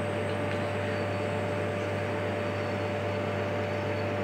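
Benchtop laboratory centrifuge running with a steady whir, a low hum and a thin steady tone. Its rotor is spinning down from 3000 rpm at the end of a timed spin that washes red blood cells in saline.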